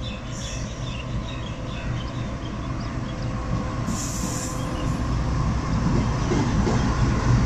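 Pakistan Railways GEU-40 class diesel-electric locomotive hauling a container train past: engine running and wheels rumbling on the rails, growing louder as it comes by. A short hiss about four seconds in.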